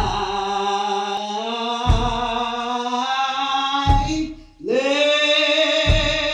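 A cappella metered (lined) hymn singing: long, slow held notes sliding from pitch to pitch, with a heavy foot stomp about every two seconds keeping time. The voice breaks off briefly past the middle, then rises into a new held note.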